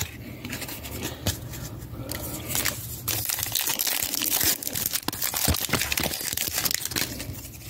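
A foil 2022 Donruss Racing trading-card pack crinkling and tearing as it is handled and ripped open, with many small crackles and clicks.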